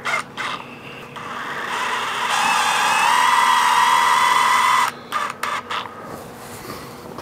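Cordless drill driving a screw into a silicone-filled old mounting hole in a fiberglass boat hull: the motor whines for about four seconds, its pitch rising a little partway through, then stops abruptly, followed by a few short spurts.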